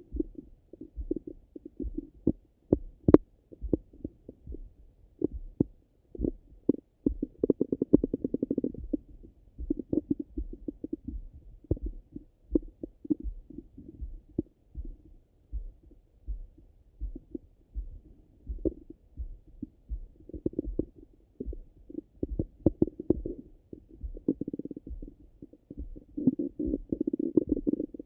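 Stomach and bowel gurgling heard through a Littmann stethoscope pressed to the belly, the rumbling of digestion after a meal. Soft thumps keep coming steadily, with stretches of denser gurgling every few seconds and one sharp click about three seconds in.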